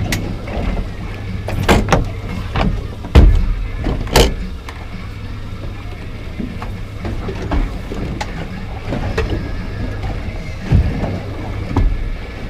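Several sharp knocks and thumps on a boat's bow deck as gear is handled there, the loudest two a few seconds in, over a steady low rumble.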